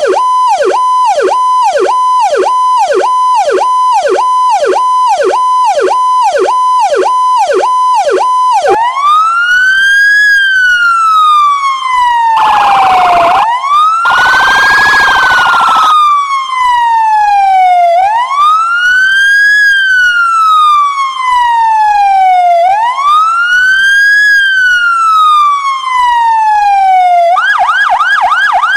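Emergency-vehicle sirens switching tones. First a fast warble, a high tone dipping sharply about two and a half times a second. Then a slow wail that rises and falls about every five seconds, cut across twice by a buzzing horn blast, and near the end a fast yelp.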